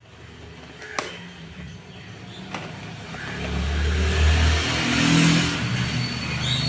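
A motor vehicle's engine passing close by, building over a few seconds to its loudest about two-thirds of the way through and then easing off. A couple of sharp clicks come before it, about a second in and again a second and a half later.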